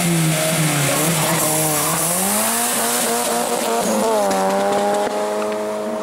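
Two tuned Honda cars, a Prelude and a Civic hatchback, launching side by side in a drag race. Their engines rev hard, the pitch climbing and dropping with the gear changes as they accelerate away.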